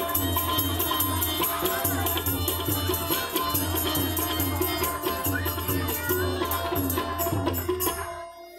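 Live folk percussion music accompanying a stage play: a steady, rhythmic drum beat with regular bright clicks on top, fading out near the end.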